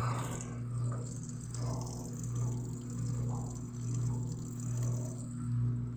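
Consul 12 kg washing machine running on its rinse cycle: a steady motor hum under water swishing and sloshing, which swells and fades every second or two as the load is churned.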